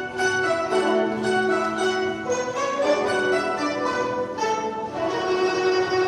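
A guzheng ensemble playing in five parts: many Chinese zithers plucked together, a quick run of ringing notes over held lower tones.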